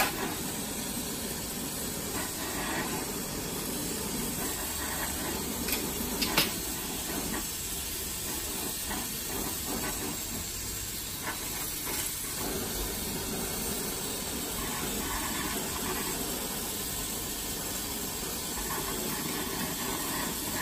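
Glassblower's bench torch flame hissing steadily as glass is worked in it, with a couple of short clicks about six seconds in.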